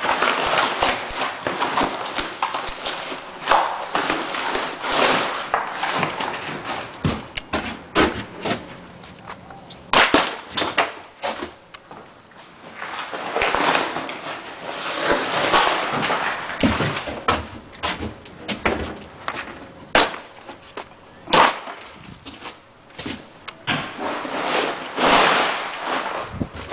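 Broken pieces of gypsum drywall being picked up off a pile and handled: scraping, rustling and cracking of the board, with sharp knocks as the pieces strike one another.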